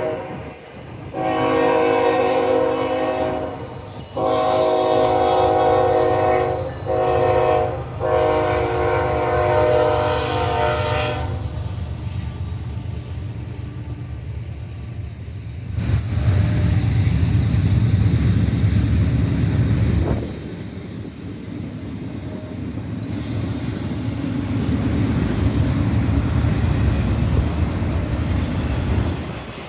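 Norfolk Southern freight locomotive's multi-chime horn sounding the grade-crossing signal: two long blasts, a short one and a long one. The diesel locomotives then rumble past, followed by the steady rolling noise of the train's cars.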